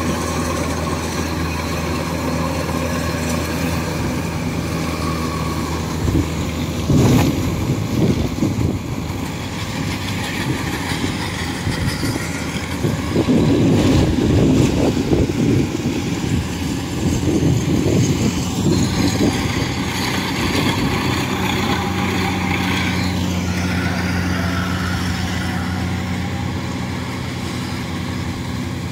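Kubota rice combine harvesters running steadily while cutting rice, a continuous low engine hum, with louder rough surges about seven seconds in and again through the middle.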